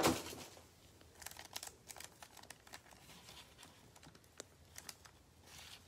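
A sharp knock at the start, then faint, scattered crinkling of wrapped trading-card packs as gloved hands gather and handle them.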